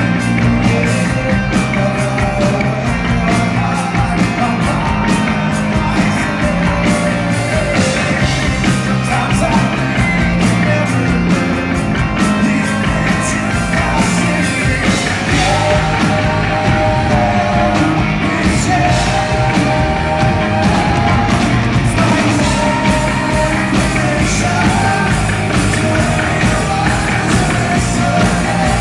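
Live rock band playing loud through a concert PA, with drums, electric guitar through Marshall amps and a male lead singer, heard from the audience.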